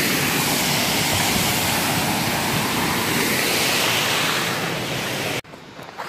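Creek water rushing steadily over rocks, close to the microphone. It cuts off abruptly about five seconds in, leaving a much quieter outdoor background.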